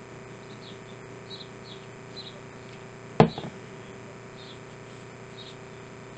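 Quiet room tone: a steady hum with faint high chirps repeating every half second or so. One sharp click about three seconds in.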